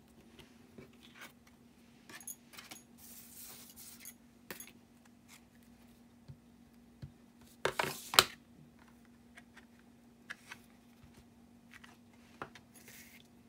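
Light clicks, taps and rubbing of stamping tools on a table: an ink pad dabbed onto a clear stamp on an acrylic block and the block set down and pressed, with two sharper knocks close together about eight seconds in. A faint steady hum sits underneath.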